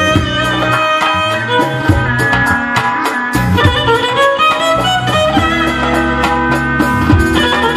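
Live Uzbek band music in an instrumental passage: a held melody line over a bass line and a steady drum beat of about two strikes a second.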